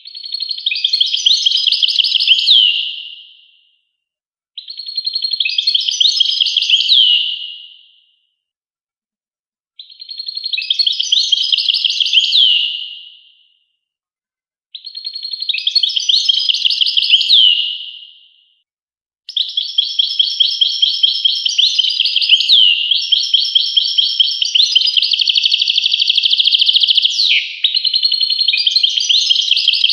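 European goldfinch singing: four bursts of fast, twittering, trilled song, each about three seconds long with short silent gaps, then a longer unbroken stretch of song from about two-thirds of the way in.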